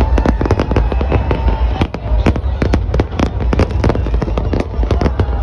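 Fireworks exploding in a dense, rapid barrage, several sharp bangs a second over a steady low rumble.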